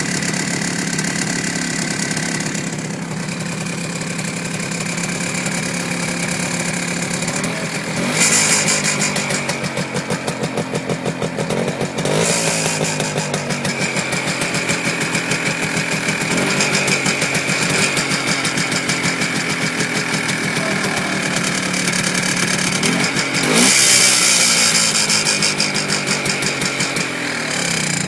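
MZ ES 250/2 motorcycle's single-cylinder two-stroke engine idling, revved briefly several times and settling back to idle each time.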